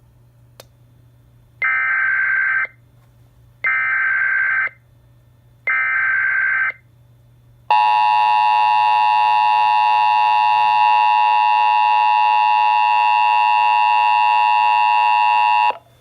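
NOAA Weather Radio receiver sounding an emergency alert announcing a Local Area Emergency. A small click is followed by three one-second bursts of digital SAME header data, about two seconds apart. Then the 1050 Hz warning alarm tone holds steady for about eight seconds and cuts off just before the end.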